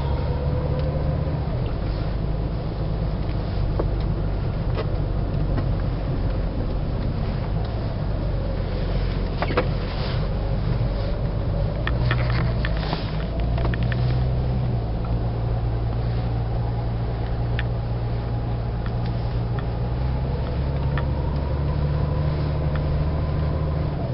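Car engine and road noise while driving, a steady low drone whose pitch shifts a few times, with scattered clicks and ticks about halfway through.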